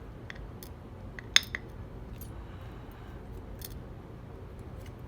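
Small sharp metallic clicks and clinks of a dimple lock's pins and springs and the tools handling them as the lock is taken apart. There are a few scattered clicks, the loudest a single sharp one about a second and a half in, with a smaller one just after.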